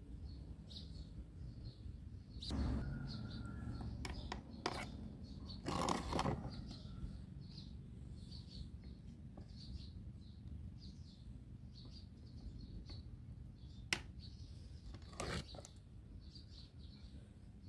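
Small birds chirping over and over in the background, with a few scattered knocks and rustles, the loudest around six seconds in.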